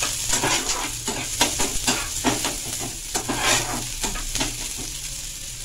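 Chopped onion sizzling in hot mustard oil in a frying pan, stirred with a spatula that scrapes the pan in repeated irregular strokes.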